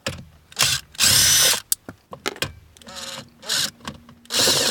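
Makita cordless impact driver fitted with a 7/16 socket, run in reverse in several short bursts to back out the bolts under the steering column cover. The longest and loudest burst comes about a second in.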